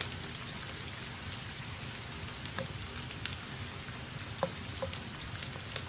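Steady faint hiss with a few light ticks as a pen writes on paper.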